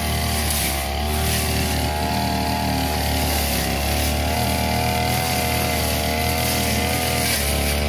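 Backpack 328 brush cutter's small two-stroke engine running at high speed as its blade cuts through tall dry grass, the engine's pitch wavering slightly as it takes the load.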